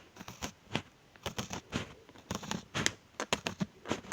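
Packet of gummy candies crinkling and crackling as it is handled close to the microphone, in a quick irregular run of small clicks and rustles.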